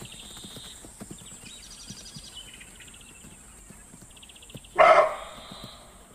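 Hooves of a running herd of greater kudu thudding on grassy ground. High, rapid chirring trills sound in the background, and one short, loud animal call comes about five seconds in.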